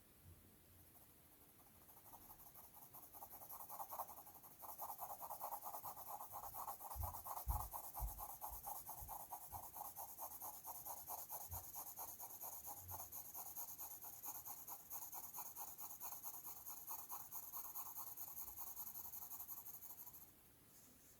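Coloured pencil rubbing on paper in quick, even back-and-forth strokes. It is faint, starts about two seconds in and stops shortly before the end, with a few soft knocks around the middle.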